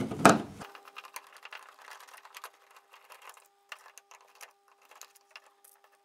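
Flat-bladed screwdriver unscrewing the two fixing screws of a plastic light-switch faceplate: a run of small clicks and scrapes, with a sharper click just after the start, thinning out toward the end as the plate comes free of the back box.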